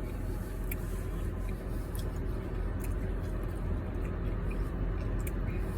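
A person chewing a mouthful of Blizzard ice cream with peanut butter cup chunks, with soft wet squishing and a few small clicks, over a steady low hum.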